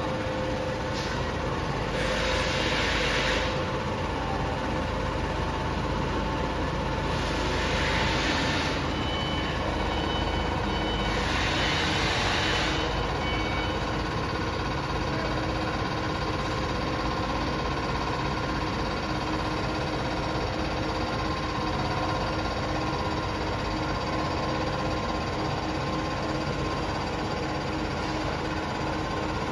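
CNC machine running while drilling and milling a fibreglass composite pipe: a steady machine hum with a constant spindle tone, broken by three louder hissing bursts of about a second and a half each, about 2, 7 and 11 seconds in.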